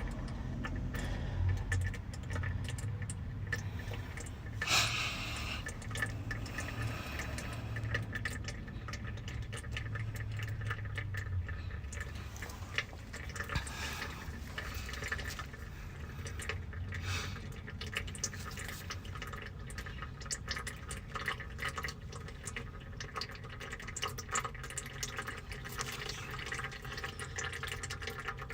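Transmission fluid trickling and dripping from the transmission's rear opening with the driveshaft pulled, a busy patter of small drips over a low hum, with a single sharper clank about five seconds in.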